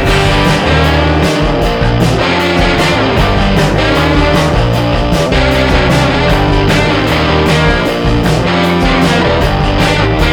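Background music: rock with guitar and a steady beat.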